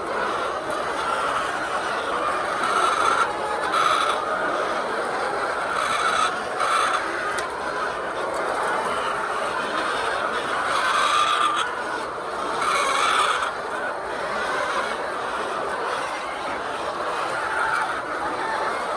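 A flock of laying hens clucking together in a steady din, with several brief louder scraping and squeaking bursts from handling during egg collection.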